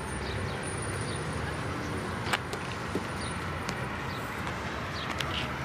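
Street ambience of steady road-traffic noise with a low rumble, a sharp click about two seconds in and a few short high chirps.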